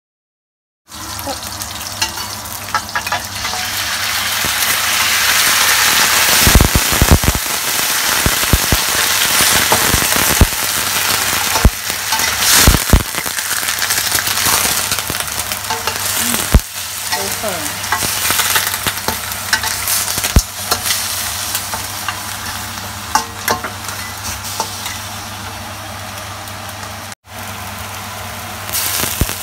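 Shallots, ginger, bay leaves and star anise sizzling in hot oil in a stainless steel wok, stirred with a metal spatula that knocks and scrapes against the pan. The sizzle grows louder once the blanched lamb pieces are in the pan, with more sharp spatula knocks.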